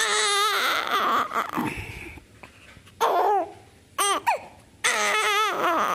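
Newborn baby crying: a long, wavering wail at the start, shorter rising-and-falling cries about three and four seconds in, and another long wavering wail near the end.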